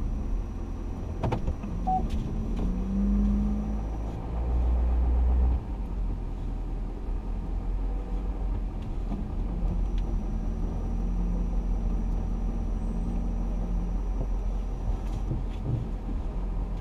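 Truck engine and road noise heard inside the cab while driving: a steady low rumble. A sharp click sounds about a second in, and a louder low rumble swells between about four and five and a half seconds in, then cuts off suddenly.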